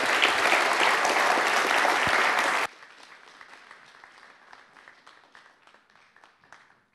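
Audience applauding, a dense patter of many hands clapping. It is loud for nearly three seconds, then drops suddenly to much fainter clapping that thins out and dies away near the end.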